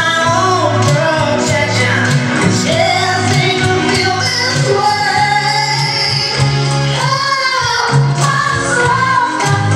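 Pop song with a lead vocal over a band and a steady bass line; the bass drops out briefly near the end.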